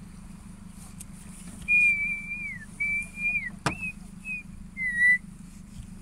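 Clear whistled notes at one high pitch: two long held notes that each slide down at the end, then several shorter ones, with one sharp click between them.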